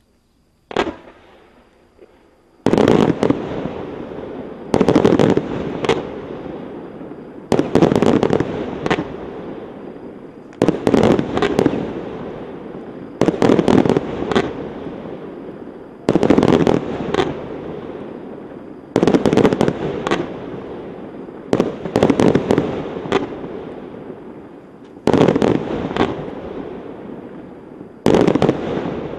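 A 100-shot fireworks cake firing in fan-shaped volleys. There is a single shot about a second in, then about ten volleys of sharp bangs roughly every three seconds, each trailing off before the next.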